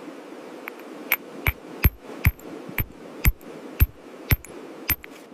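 A stone being struck with something hard: about ten sharp knocks, roughly two a second, each with a brief high ring.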